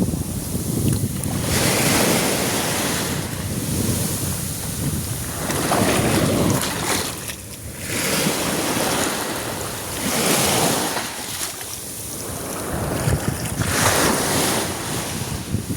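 Sea waves washing onto the beach, the surf swelling and falling back every few seconds, with wind buffeting the microphone.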